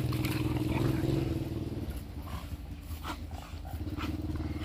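Two American Bully dogs rough play-fighting, with low growling and scuffling.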